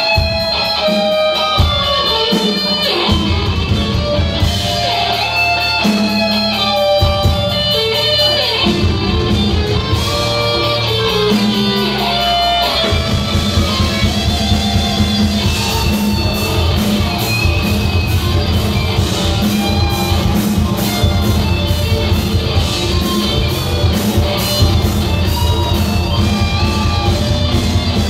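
Live rock band playing an instrumental section: an electric guitar lead line of distinct stepping notes over bass guitar, keyboard and drum kit. The drums and cymbals grow busier about halfway through.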